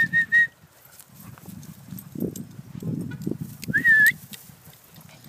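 Short whistle calls to the dogs: four quick even pips at the start and a longer dipping-then-rising whistle about four seconds in, over low footfalls and rustling of walking through grass.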